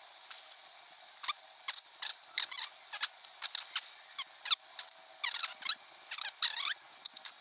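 Small metal parts of a brass model tractor being handled and fitted by hand: a run of short clicks, scrapes and squeaky scratches, closer together from about a second and a half in.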